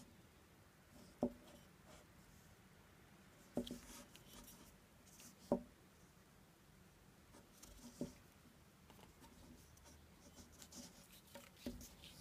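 Faint handling noise of a metal handheld microphone being moved about on a sheet of paper: light paper rustling with four soft knocks spread a couple of seconds apart, and a louder knock at the very end.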